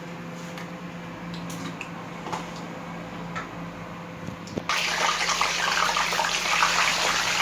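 Tilapia going into hot vegetable oil in a frying pan: a few light clicks, then about two-thirds of the way through a loud sizzle starts suddenly and keeps going with fine crackling as the fish fries.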